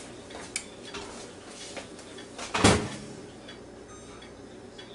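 Microwave oven door handled with a small click, then shut with a single loud thud; a faint steady hum follows as the oven starts running.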